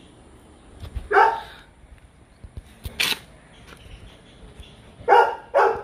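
A dog barks once, then twice in quick succession near the end, with a sharp click in between.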